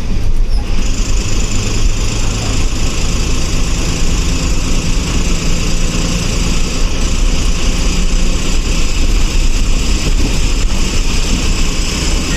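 Eicher bus's diesel engine running steadily under way, heard from inside the driver's cabin: a low, even hum with a steady high hiss over it. The engine note is the one called strange and 'funny'.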